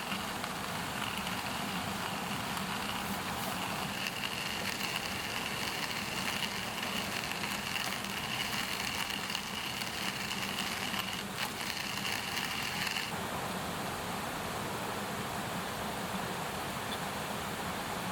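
Wood bonfire burning with a steady hiss and scattered sharp crackles as raw sausages sizzle over it. A steady high whine runs beneath and stops abruptly about thirteen seconds in.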